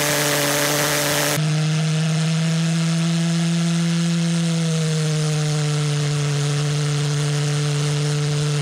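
Propane-fuelled pulse jet engine with a thermal cracking coil running, a loud, steady pitched buzz with strong overtones.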